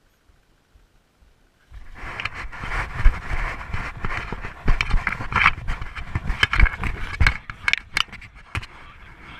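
Running footsteps crunching in snow on a paraglider launch run, with wind rumbling on the microphone, starting about two seconds in. Many irregular crunches and thumps.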